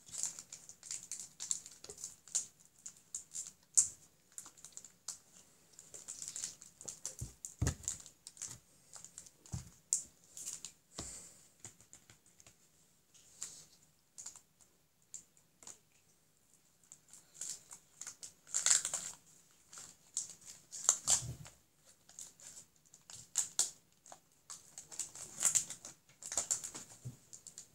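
Irregular crinkling, rustling and clicking of a foil booster-pack wrapper and trading cards being handled, with a few louder crackles along the way.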